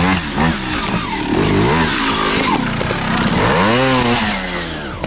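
Beta trial motorcycle engine revved in repeated quick rising-and-falling blips as the bike climbs a rock step under load, with one longer rev near the end.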